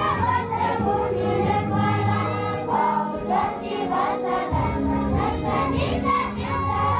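Music with a group of voices singing a melody over steady low sustained notes.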